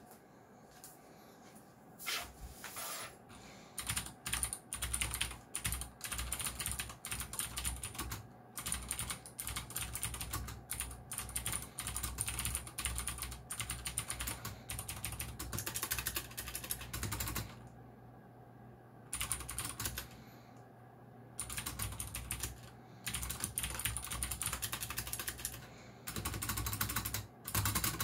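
Fast typing on a Geekstar × Deck Hassium Pro 108 mechanical keyboard with blue (Cherry MX-style clicky) switches: crisp, dense key clicks in runs, starting about two seconds in and broken by short pauses a couple of times.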